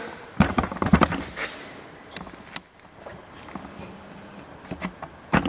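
Scattered short clicks and knocks of parts and tools being handled during teardown of an engine's front timing-chain area, a few near the start and a small cluster near the end.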